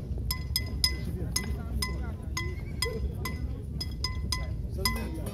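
Bells rung over and over, about three or four sharp clangs a second, each with a short ring, over a low murmur of street noise.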